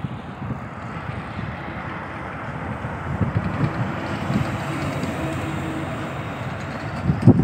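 A semi-trailer truck drives past on a concrete road, its engine and tyre noise building as it comes alongside, with low wind buffeting on the microphone and a louder gust near the end.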